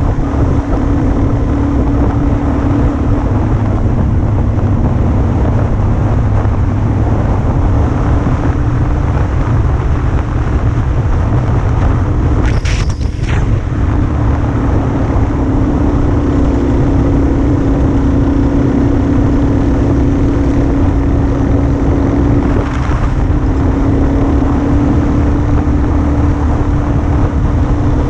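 Motorcycle engine running at a steady cruising pitch, with heavy wind rumble on the microphone. A brief high-pitched sound cuts through about halfway in.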